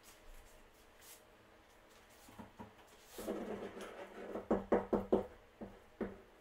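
A gloved hand working paint onto a canvas: after a quiet start, a quick run of short scuffing and dabbing strokes against the canvas surface in the second half.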